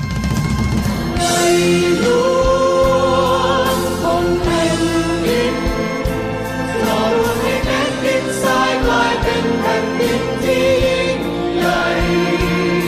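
Music for a stage dance show: a group of voices singing a melody together over an instrumental accompaniment, with percussion strikes at irregular intervals.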